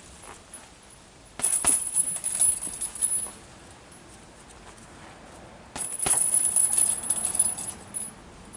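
Metal chain of a hanging punching bag rattling and jingling in two bursts of about two seconds each, one a little over a second in and one near six seconds in.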